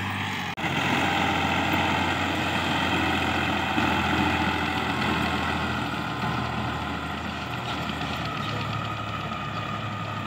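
Al-Ghazi farm tractor's diesel engine running steadily under load as it pulls a rotavator through the soil. There is a brief break about half a second in, and the sound grows slightly fainter toward the end.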